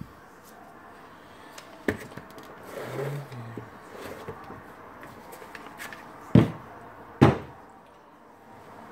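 A Makita DHP480 cordless drill and its 18V battery pack being handled and set down on a wooden workbench. A light click comes about two seconds in, then two sharp knocks less than a second apart as the pieces are put down.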